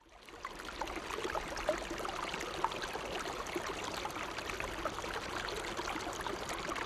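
Trickling, bubbling water like a small stream, fading in over the first second and then running steadily, with many small drips and bubbles through it.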